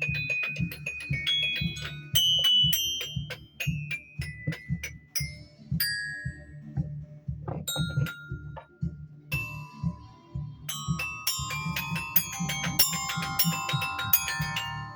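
Mallet percussion struck in fast runs of high, ringing pitched notes. The strikes thin out to a few scattered hits midway, then a dense flurry of lower notes follows near the end.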